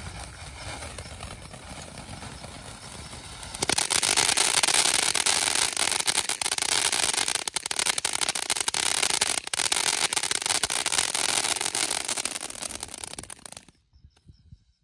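Red Lantern 'Magic in the Garden' firework fountain spraying sparks with a steady hiss. About four seconds in it turns much louder with dense crackling, then cuts off suddenly near the end as it burns out.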